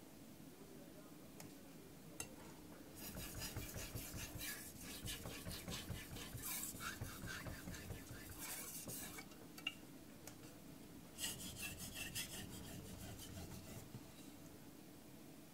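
Aogami carbon-steel knife blade stroked back and forth on a wet Kitayama 8000 finishing waterstone: soft, rhythmic scraping strokes. A run of strokes starts about three seconds in and lasts about six seconds, then a shorter run follows a couple of seconds later.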